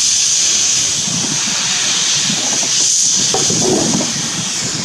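Steady, loud hiss of steam from the open cylinder drain cocks of a Peckett 0-6-0 saddle-tank locomotive shunting slowly. Irregular rumbling and knocking from the wagons' wheels and couplings joins in from about a second in.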